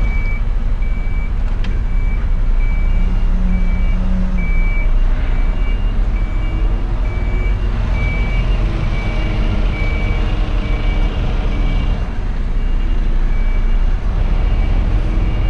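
Truck reversing alarm beeping at about two beeps a second over the steady low running of the lorry's diesel engine as it backs up. A second, slightly higher beep joins in about three seconds in.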